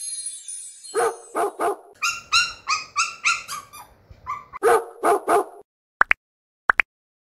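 A dog barking: three barks, then a quick run of higher-pitched yips, then three more barks. Near the end come two pairs of short rising chirps.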